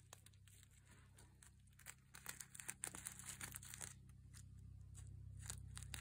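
Reversible flip sequins on a purse rustling and clicking faintly as a thumb brushes them over: a soft crackle of many small ticks, busier from about two seconds in.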